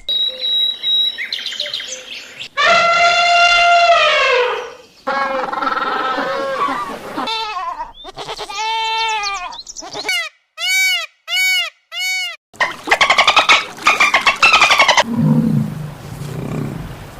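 A string of different animal calls played one after another: a long, loud, drawn-out call that falls in pitch at its end, a wavering call, four short identical arched calls separated by silences, then a fast pulsing call.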